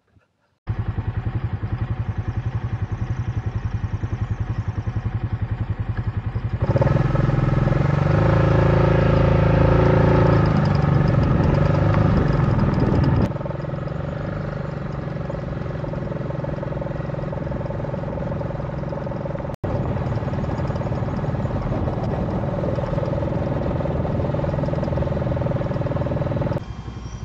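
Motorcycle engine running at a steady speed, in several back-to-back clips whose level and tone change abruptly every six or seven seconds. It is loudest from about seven to thirteen seconds in.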